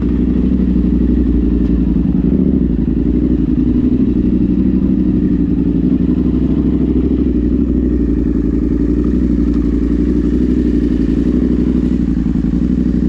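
Engine of an off-road vehicle running steadily close to the microphone, with a low, dense pulsing drone.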